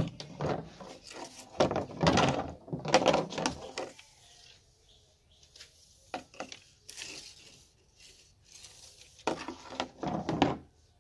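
Thin split-bamboo kite strips being handled and slid across a wooden tabletop: several short bursts of scraping and rubbing with light knocks, separated by quiet pauses.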